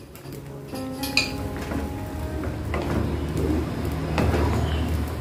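Wooden spatula stirring and scraping through a soupy mix in a nonstick wok, with a few sharp knocks against the pan, over a steady low hum.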